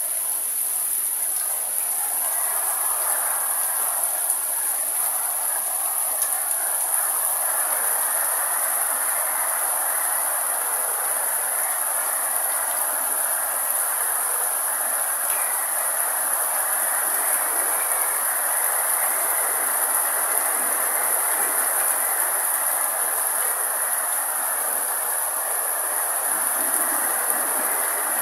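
Steady rain falling on foliage, a continuous even hiss, with an unbroken high-pitched drone above it.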